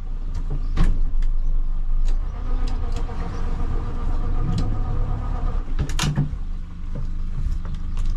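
Steady low mechanical hum inside an aluminium boat's cabin, with knocks and clunks as someone moves about and handles gear, two of them loud. A steady whine joins in for about three seconds in the middle.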